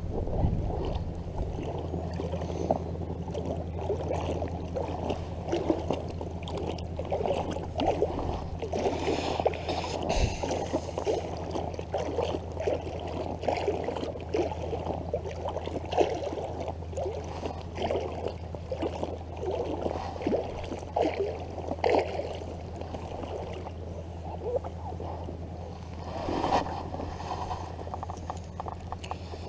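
Water gurgling and sloshing against a float tube, in many small irregular splashes over a steady low hum.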